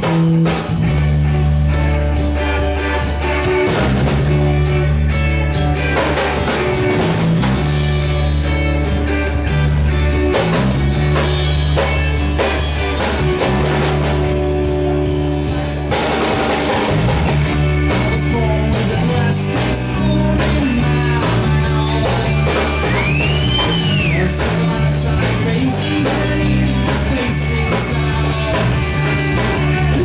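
Live rock band playing a song: electric guitar, acoustic guitar, bass guitar and drum kit, with singing. Loud and steady.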